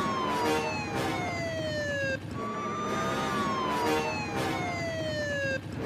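Police car siren wailing in two sweeps: the pitch climbs slowly, then glides down, and each sweep cuts off suddenly before the next starts. A steady low rumble runs underneath.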